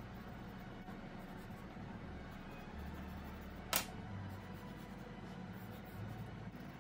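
Steady low hum and quiet room noise, with one sharp click a little past halfway as one coloured pencil is swapped for another.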